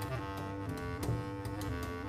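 Bass clarinet and double bass playing improvised jazz together: held notes that step in pitch every half second or so over low bass notes, with faint clicks.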